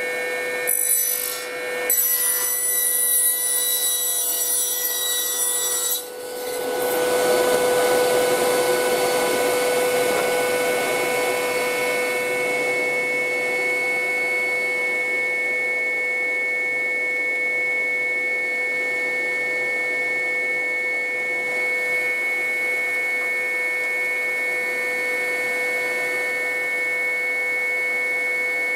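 An electric workshop machine runs steadily with a whine. About six seconds in, the sound briefly dips and then a louder rushing noise joins the whine.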